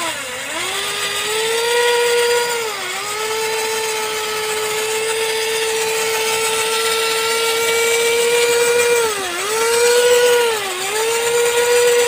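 Electric motor and gearbox of a WPL C24 RC crawler running, with a steady whine as the wheels turn. The pitch dips briefly three times as the throttle eases and comes back.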